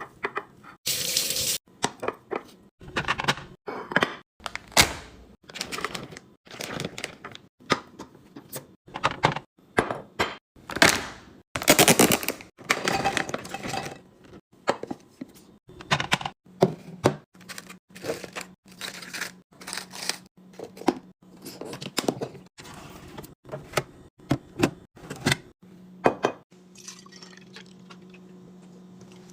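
Fridge restocking: containers, jars and bottles set down and handled in quick knocks and clinks, with a few brief rushes of liquid being poured. A low steady hum comes in about halfway through.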